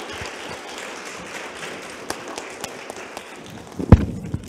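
Audience applauding, the clapping thinning out toward the end. A single loud thump comes just before the end.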